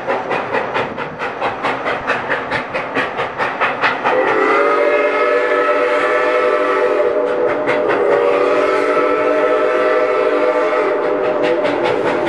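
Ex-Canadian National 0-6-0 steam locomotive No. 7470 working toward the listener, its exhaust chuffing about four times a second. About four seconds in, its steam whistle starts one long, loud blast that is held through the rest, with the chuffing still faintly under it.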